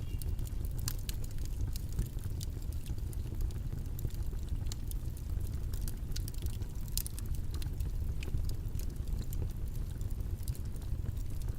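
Steady low rumbling background noise, the white-noise bed of a study session, with scattered faint light clicks through it.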